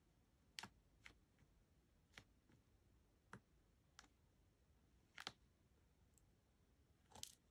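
Faint, irregular small clicks and pops of a wax-tipped diamond painting drill pen picking up resin drills from the tray and pressing them onto the sticky canvas, about seven over several seconds.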